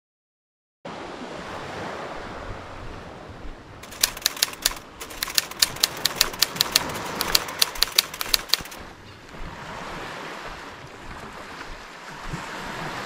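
Sea surf washing steadily. From about four seconds in, a run of about twenty sharp, irregular clicks lasts some five seconds and is the loudest sound.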